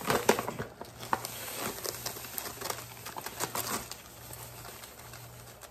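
Paper sugar bag crinkling as granulated sugar is poured from it into a stainless steel measuring cup, with scattered small clicks and taps. It grows fainter after about four seconds.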